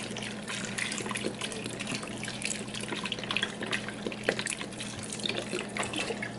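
Chicken broth pouring from a carton into a stainless-steel pot of diced potatoes: a continuous splashing trickle. A faint steady low hum runs underneath.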